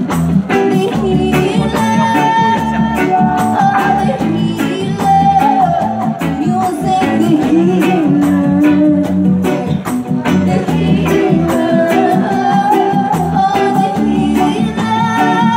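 Live reggae band music: a woman singing over electric guitar, bass and drums, with a steady beat and a shaker-like percussion line.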